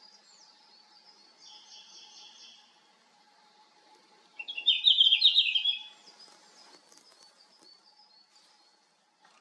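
Male red-flanked bluetail singing one short, quick warbling phrase about halfway in, the loudest sound. Fainter short high calls of other birds go on throughout.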